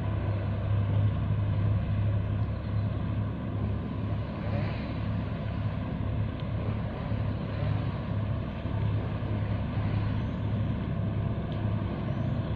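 Steady low engine drone of ships moving in the harbour channel, a deep hum that throbs about once a second.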